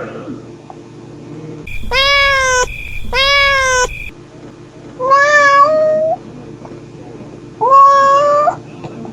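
Mother cat meowing to call her kittens: four drawn-out meows, each rising at the start and then held. Two come close together about two seconds in, one around five seconds, and one near eight seconds.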